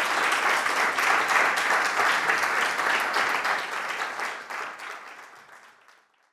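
Audience applauding, the clapping fading out over the last two seconds.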